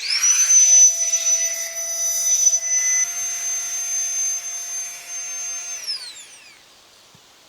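A small electric motor whirring at a steady high pitch. It spins up at once, runs for about six seconds, then winds down with a falling pitch.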